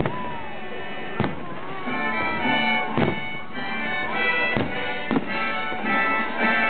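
Aerial firework shells bursting in several sharp bangs a second or two apart, over music with long held notes.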